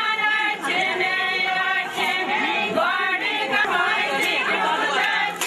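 A group of women singing a Kashmiri mehendi raat wedding song together, unaccompanied and chant-like, with held notes.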